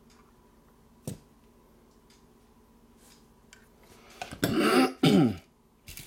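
A man clears his throat twice in quick succession near the end, after a single sharp click about a second in.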